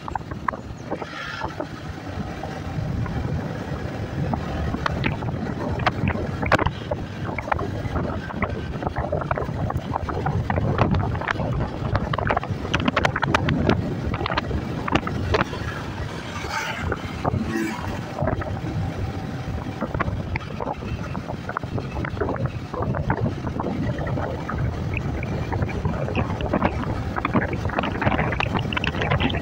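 Wind buffeting the microphone of a moving Yamaha motorcycle, over the steady noise of the ride and its engine.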